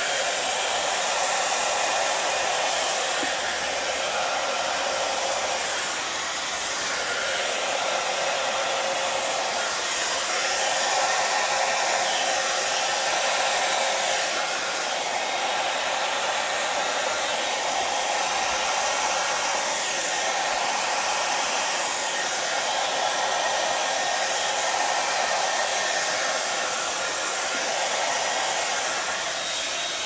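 Yiiho hair dryer blowing steadily on high, its air stream pushing acrylic paint and cell activator outward across a canvas in the bloom technique.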